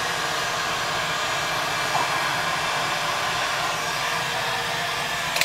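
Electric heat gun running steadily with a constant blowing whir, with a sharp click near the end as it is switched off.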